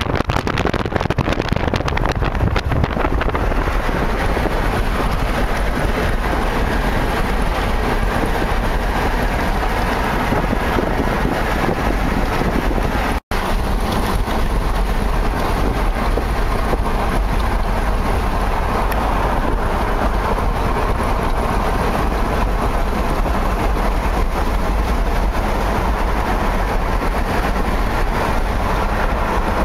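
Steady road and engine noise heard from inside a moving car, breaking off for an instant about 13 seconds in.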